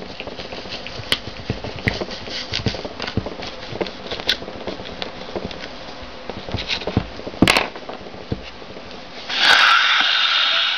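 Hollow pen tube being pushed and worked sideways into an apple: a run of small crunching clicks and taps, with two sharper knocks about seven and a half seconds in. Near the end a loud rushing hiss lasts about a second and a half.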